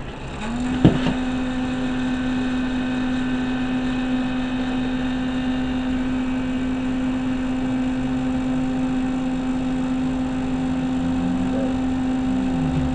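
A motor starts with a click, comes up to speed about half a second in, and runs at a steady pitch, with a lower hum joining in the second half.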